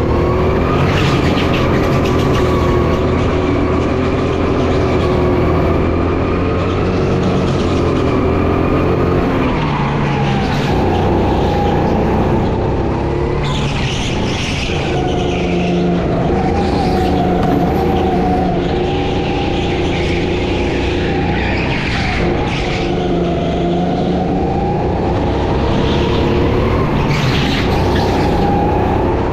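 Go-kart engine at race pace, its note dropping under braking and climbing again out of the corners, twice. Tyres squeal briefly about halfway through and again near the end.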